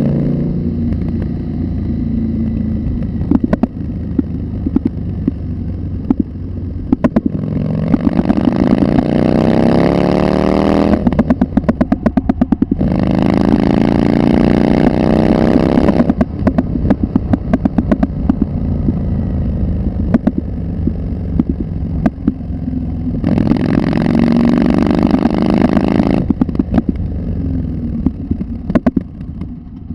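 Street rod engine running under way, revving up in repeated rising sweeps as it accelerates, over a steady low rumble, with many sharp clicks and knocks scattered through it.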